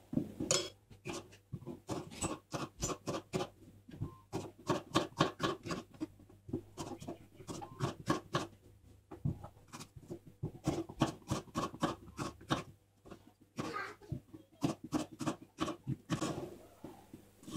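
Kitchen knife cutting capsicum on a chopping board: a fast run of short knife strikes, about four a second, with a brief pause about two-thirds of the way through.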